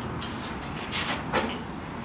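Work noises at a clay tandoor oven as a baker handles baked loaves: a few short scrapes and knocks, the clearest about a second in, over a steady background rumble.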